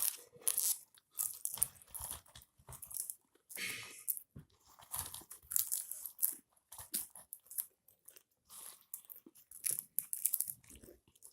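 Popcorn being crunched and chewed fast, a rapid irregular run of short crunches.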